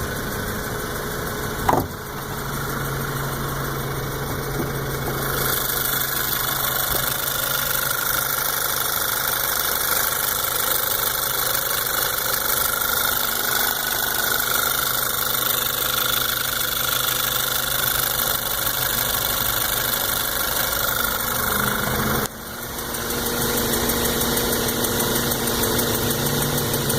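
Volkswagen GTI's 2.0-litre turbocharged four-cylinder engine running with the hood open, with a ticking from the lower part of the engine that increases with RPM, a fault the owner hears on a new engine at 1,000 miles. The engine note shifts about five seconds in, and again after a brief drop in level near the end.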